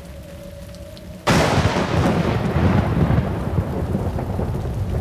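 A thunderclap breaks suddenly about a second in and rumbles on, slowly fading, over falling rain.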